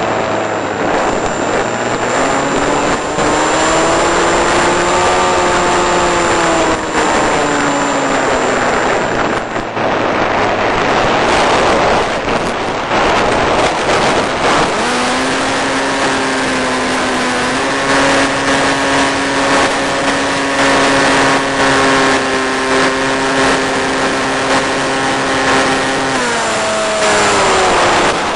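Electric motor and propeller of an RC flying wing in flight, heard over a constant rush of wind and hiss: a whine that rises and falls in pitch with the throttle in the first part, then holds a steady higher pitch for about ten seconds before dropping away near the end. Short crackles and dropouts break through now and then.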